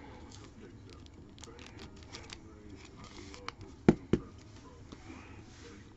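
Trading cards being handled by hand: soft rustling and light ticks, with two sharp clicks in quick succession about four seconds in.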